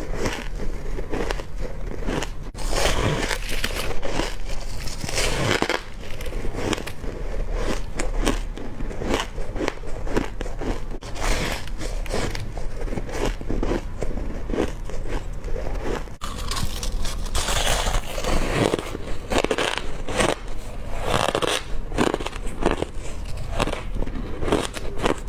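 A person biting into hard crushed ice close to the microphone: dense, irregular cracking and crunching as the ice breaks between the teeth, bite after bite.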